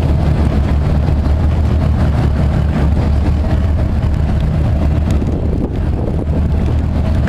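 A steady, low engine drone with no let-up, and wind buffeting the microphone.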